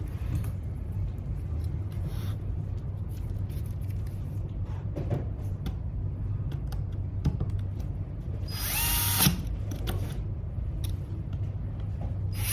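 WORX cordless electric screwdriver whining briefly as it drives a small screw, about two-thirds of the way in, with a second run starting right at the end. Light clicks of small parts being handled come before it.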